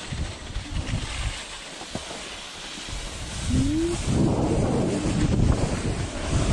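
Wind buffeting the camera microphone and the rush of skis sliding over snow during a downhill run. It gets louder about halfway through as speed picks up, just after a short rising tone.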